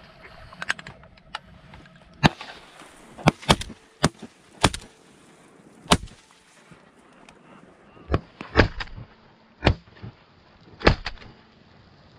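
A run of about a dozen shotgun shots fired at ducks overhead, with some in quick pairs and threes and with varying loudness, as more than one gun fires. A spent shell ejects from a semi-automatic shotgun.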